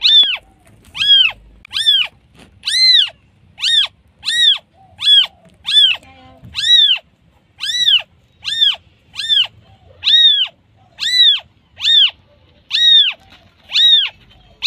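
Newborn kitten mewing over and over, about two short, high-pitched calls a second, each rising and then falling in pitch, with a brief pause midway. It is calling for its mother.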